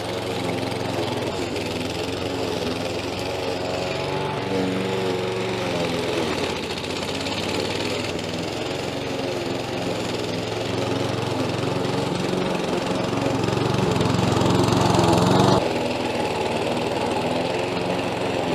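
Stihl RM4 RTP petrol mulching lawn mower running and cutting through long, thick grass. The engine works steadily under load, grows louder for a few seconds past the middle, then drops back suddenly about three quarters of the way through.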